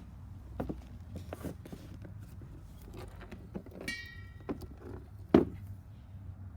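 Hand work prying a plastic piece off a motor: scattered clicks and knocks, a short high-pitched squeal about four seconds in, and one heavy thump a second later, over a steady low hum.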